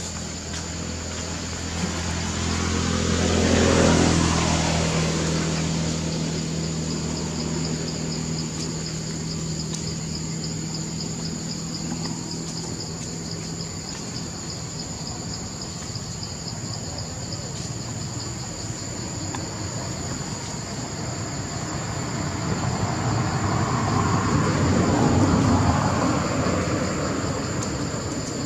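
Insects chirring steadily in high, pulsing tones. A motor vehicle passes by, its sound swelling to a peak about four seconds in and fading, and a second one passes near the end.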